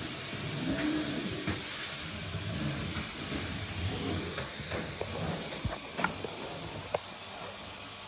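A Dyson vacuum cleaner running steadily, heard as an even hiss. A few short, light clicks come between about five and seven seconds in.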